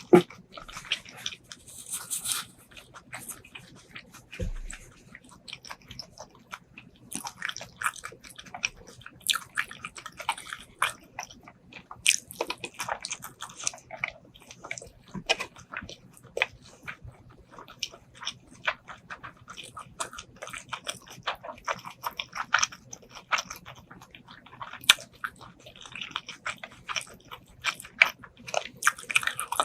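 Close-miked eating: wet, irregular chewing and biting on braised pork ribs and rice, with sharp clicks and crunches scattered throughout.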